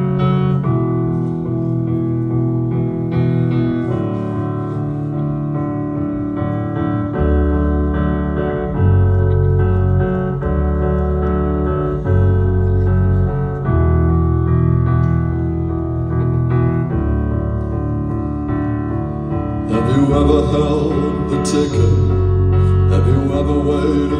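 Live band's instrumental intro played through the stage PA: held keyboard chords, with low bass notes joining about seven seconds in and drums and cymbals coming in about twenty seconds in.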